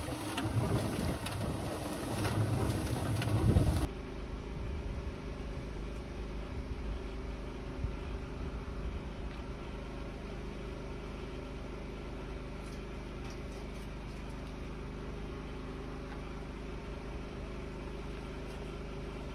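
An electric cement mixer running, its drum churning noisily with uneven surges. About four seconds in it cuts to a steady low mechanical hum with a few faint clinks.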